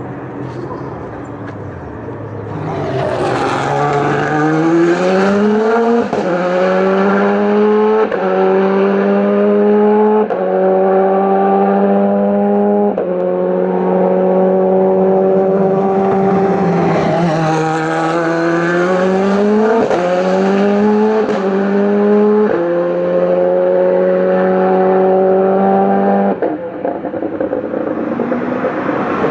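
Racing car engine accelerating hard through the gears, its pitch climbing and then dropping sharply at each upshift. There are four shifts in quick succession, then a lift and a climb again, followed by several more shifts. The sound cuts off suddenly near the end.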